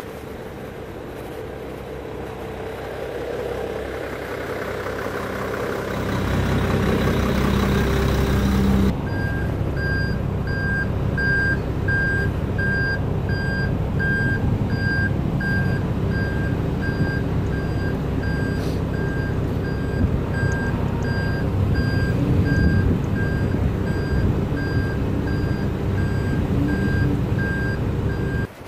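A large vehicle's engine running with a low rumble, and from about nine seconds in a reversing alarm beeping at an even, steady pace.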